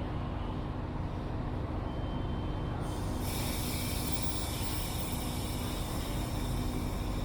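Diesel-hauled passenger train standing at a station platform, its engine running with a steady low rumble and hum. About three seconds in, a steady high hiss cuts in and keeps going.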